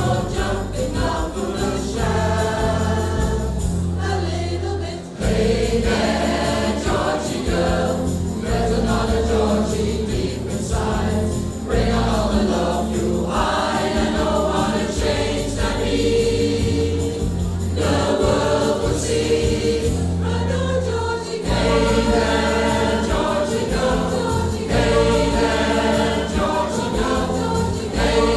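Recorded music: a choir singing with instrumental accompaniment and a steady bass line.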